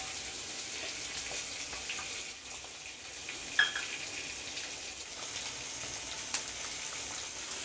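Hot cooking oil sizzling in a metal kadai, with fenugreek seeds frying and starting to crackle: the first stage of tempering. A single sharp metallic tink about three and a half seconds in.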